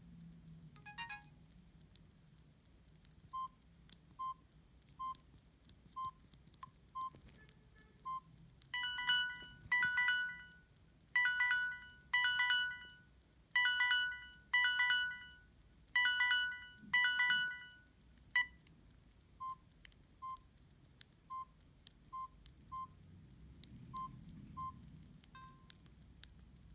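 Samsung GT-E1170 phone's speaker playing a ringtone: a run of bell-like chimes struck in pairs for about nine seconds, then cut off suddenly. Before and after it come short single beeps about a second apart, the phone's key tones.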